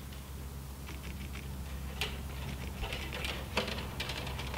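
Hand wire stripper/crimper cutting and stripping insulated electrical wire: a few short clicks, the clearest about two seconds in and another about three and a half seconds in, over a faint low hum.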